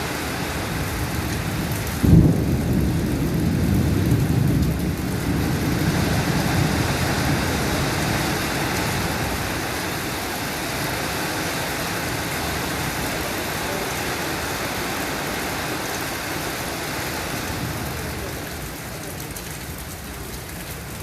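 Steady rain falling, with a sudden clap of thunder about two seconds in that rolls on as a low rumble for several seconds before fading.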